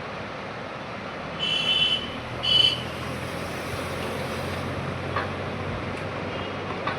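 Plastic bottom cover of an HP laptop squeaking twice as it is pried open with a blade at its locking clips, over a steady background hum.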